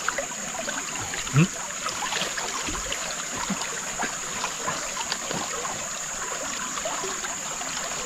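Steady trickle of a nearby stream under a constant high-pitched hum, with scattered light clicks of people eating from plates and one brief low sound about a second and a half in.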